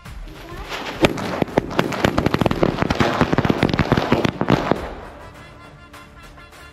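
Firecracker going off in a rapid run of many sharp bangs and cracks, starting about half a second in with one especially sharp crack about a second in, crackling densely for around four seconds and dying away about five seconds in, leaving background music.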